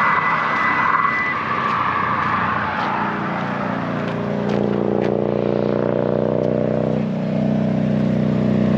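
Motor vehicle noise by a highway: a loud rushing noise for the first few seconds, then a steady droning engine hum from about four seconds in.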